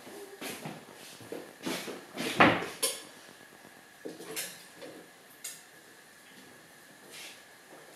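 Dishes and cutlery clattering as they are handled, with one loud clank about two and a half seconds in and a few lighter knocks and clinks after it.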